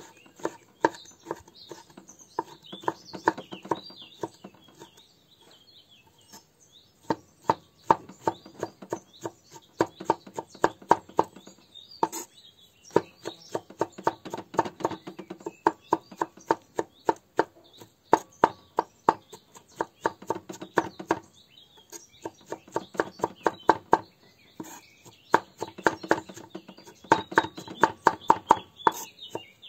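A kitchen knife chopping vegetable pieces on a wooden cutting board: fast runs of sharp knocks, several a second, broken by short pauses. Birds chirp faintly in the background.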